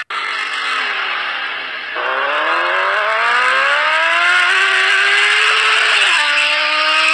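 High-revving car engine accelerating. Its pitch sags at first, then climbs steadily for about four seconds and drops sharply about six seconds in, as at an upshift, over a steady rushing hiss.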